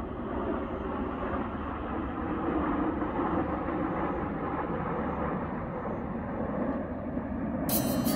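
Jet engine noise from a six-plane formation of Blue Impulse Kawasaki T-4 jets flying past high overhead: a steady rushing drone that swells a little two to three seconds in. Light harpsichord music comes in near the end.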